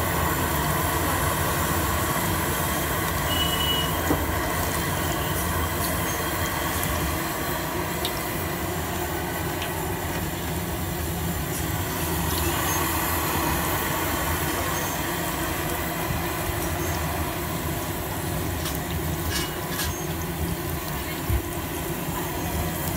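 Hot oil sizzling steadily in a large kadai as strips of batter are dropped in by hand and deep-fried into fritters.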